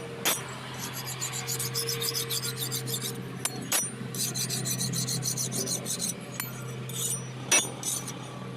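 Rapid rasping strokes on an axe head's steel, as in sharpening, coming in runs of one to two seconds. A steady low hum runs underneath, and there are three sharp knocks.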